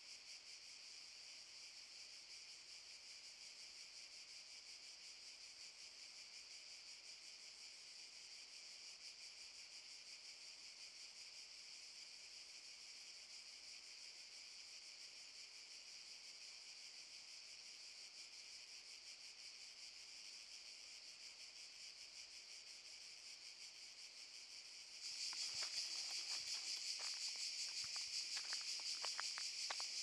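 A chorus of cicadas chirping in a steady, rapidly pulsing drone. About 25 seconds in it turns suddenly louder, with a run of irregular clicks over it.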